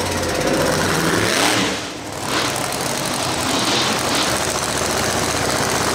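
Monster truck engine running loud, with a brief drop about two seconds in before it carries on steadily.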